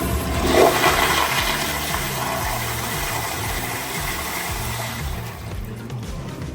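Commercial toilet flushing: a loud rush of water that fades out after about five seconds, under background music.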